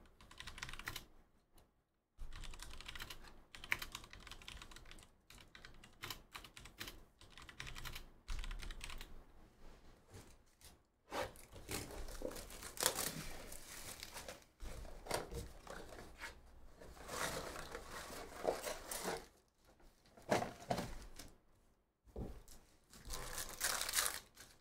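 Clicks of typing on a computer keyboard, then the rustle and crinkle of a cardboard trading-card box being opened by hand and a foil card pack being torn open, in irregular bursts that grow louder and busier about halfway through.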